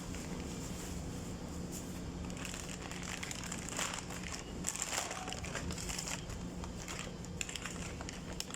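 Scattered light clicks, rustles and small taps of parts being handled by hand, over a steady low hum.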